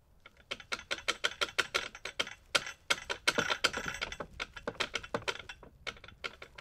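A rapid run of sharp, irregular clicks, several a second, starting about half a second in and stopping near the end.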